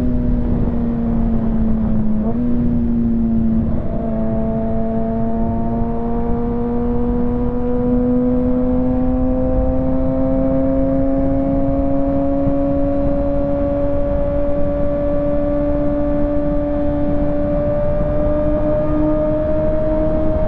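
Kawasaki ZX-6R 636's inline-four engine pulling steadily at highway speed, its note dipping slightly early on, then rising slowly and evenly, with heavy wind and road noise beneath.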